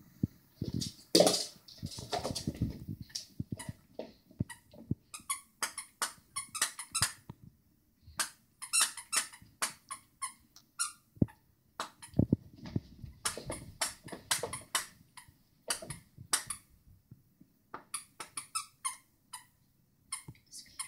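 Squeaky dog toys squeezed over and over as dogs bite and chew them. The squeaks are short and high and come in quick runs, with brief pauses between.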